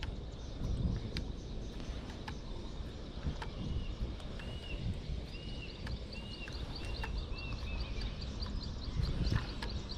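Outdoor background noise with a low rumble and scattered light clicks. In the middle a short, high, arched squeak or whistle repeats about seven times, a little more than one a second, with faint fast ticking above it.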